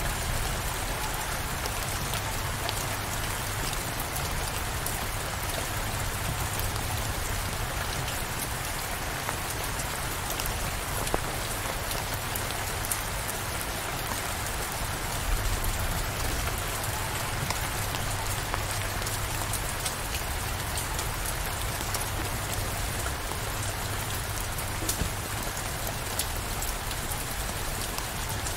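Steady downpour of rain, with a constant low rumble underneath and now and then a single sharper drop or tick.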